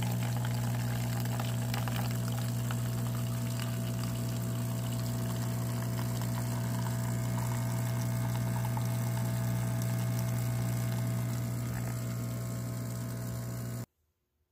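De'Longhi bean-to-cup espresso machine's pump humming steadily as coffee streams from the spout into a cup. It eases slightly near the end, then cuts off abruptly.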